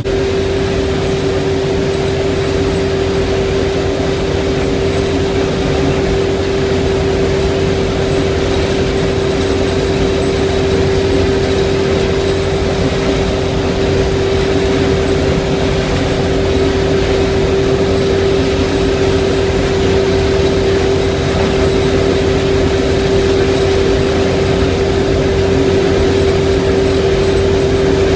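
Combine harvester running steadily while harvesting corn: a constant whine over a low engine drone.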